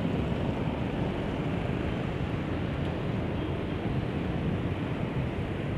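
Steady low rumble of engines: a diesel locomotive approaching slowly along the track, mixed with road traffic of cars and motorcycles passing alongside.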